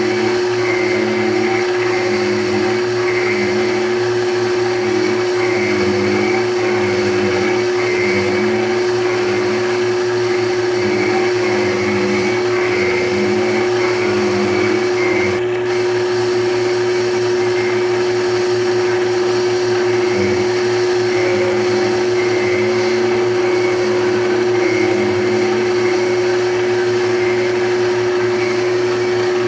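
Belt-driven horizontal cutting frame on a rose engine lathe, its small cutter spinning and cutting into soft wood. The motor gives a steady hum, and the cutting noise rises and falls at a regular beat as the work turns past the cutter.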